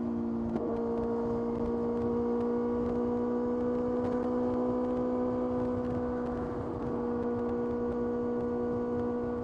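Kawasaki ZX-6R's inline-four engine and exhaust running at steady revs while riding, the note holding an even pitch with a small step up about half a second in.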